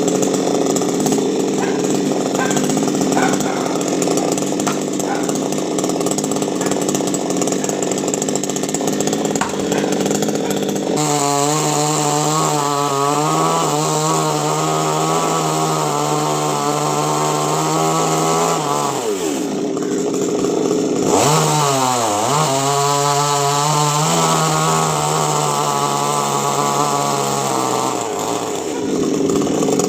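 Chainsaw engine running hard, first with a rough, dense sound as it cuts coconut-tree wood. About a third of the way in it switches to a clean, steady tone. Past the middle its pitch drops and climbs back, and near the end it winds down.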